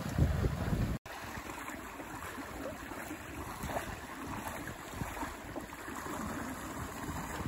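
Wind buffeting the microphone and water rushing past a sailboat's hull, loud and low for about a second; after a sudden cut, a quieter steady wash of water and wind.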